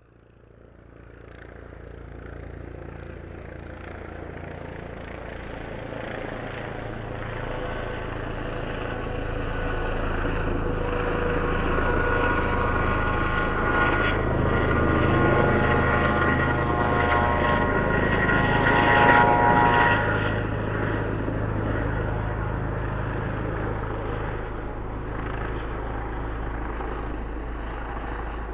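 Helicopter flying past. It fades in from nothing and grows steadily louder, with a steady low drone and a high whine above it, peaks about two-thirds of the way through, then slowly recedes.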